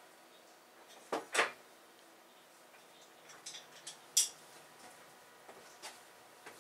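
Sparse light clicks and knocks of small hardware and tools being handled on a workbench: two knocks about a second in, then a few sharp clicks, the loudest just past four seconds in.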